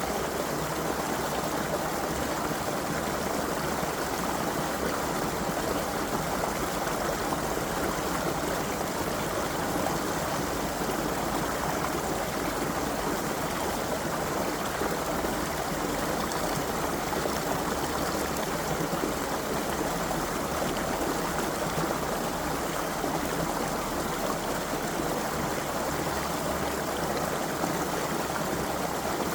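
A creek flowing steadily: an even, unbroken rush of running water.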